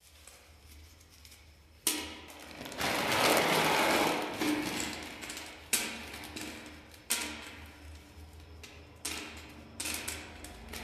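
A clear plastic packet crinkling and rustling as it is handled, starting about two seconds in and loudest over the next few seconds, with several sharp clicks in between.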